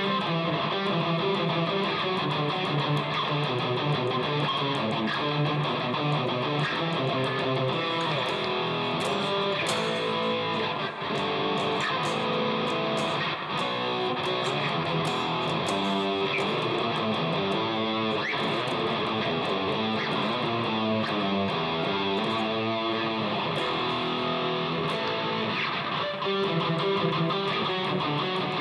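Electric guitar played continuously through an amp modeler in a multi-effects unit, with its noise gate on, into the clean channel of a small tube amp with a single preamp tube. Sustained chords and riffs with little background noise between them.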